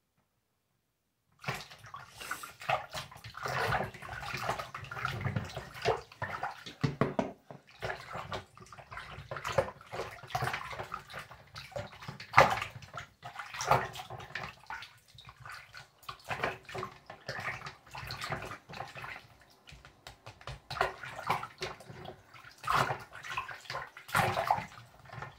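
Water sloshing and splashing in a filled bathroom sink as a hand swishes through it, in irregular uneven splashes that start about a second and a half in.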